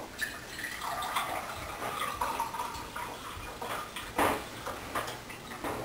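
Cold water pouring from a plastic filter pitcher into a drinking glass, splashing as the glass fills. Two brief knocks follow later on.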